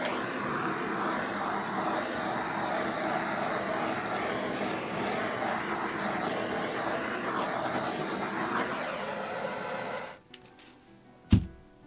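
Handheld butane torch lit with a sharp click and burning with a steady rushing hiss for about ten seconds as it is passed over a wet acrylic pour, then shut off. About a second later, a single thump.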